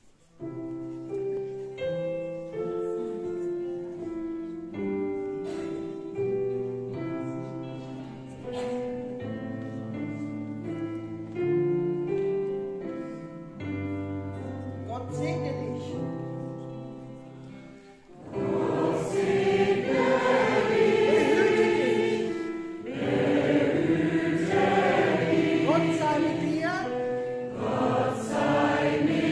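A keyboard plays a slow chordal introduction, then a mixed gospel choir comes in singing over it about 18 seconds in, much louder.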